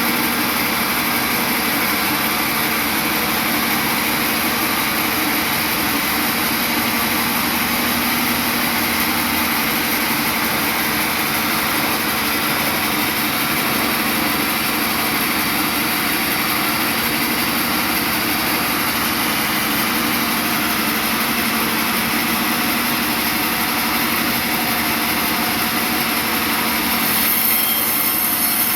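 Sawmill machinery running steadily: a continuous loud machine drone with a steady hum and a high hiss, unchanging for the whole stretch.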